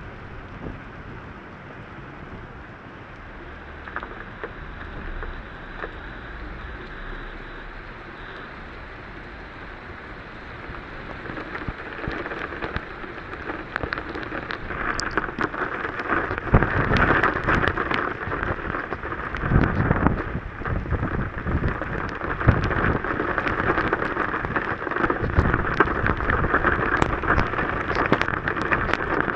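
Heavy rain pelting a car's windshield and body, heard from inside the car, with many sharp drop hits. The downpour grows much heavier about halfway through, with several deep low rumbles of the storm.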